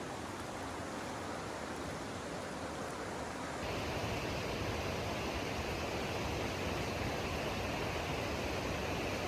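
Steady road and engine noise of a Toyota Hilux 4WD driving along. It changes abruptly about four seconds in, becoming slightly louder and hissier.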